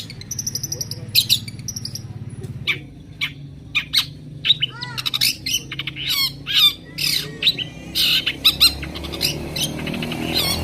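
Long-tailed shrike singing: a rapid, varied string of harsh chattering notes and sweeping chirps, over a steady low hum.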